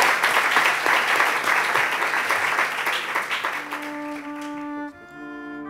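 Audience applauding, the clapping fading away over about four seconds, as closing music with long held notes comes in.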